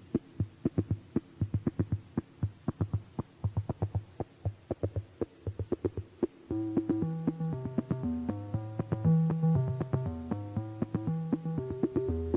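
Instrumental music. A pulsing note repeats about five times a second. About six and a half seconds in, a bass line and a stepping melody of held notes join in, and the music grows louder.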